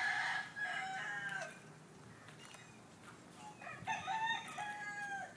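Rooster crowing twice, each crow about a second and a half long.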